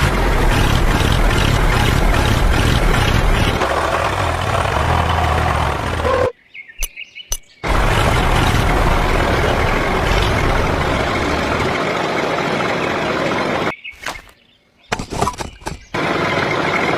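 A machine running loudly with a dense mechanical noise, in three stretches separated by abrupt cuts.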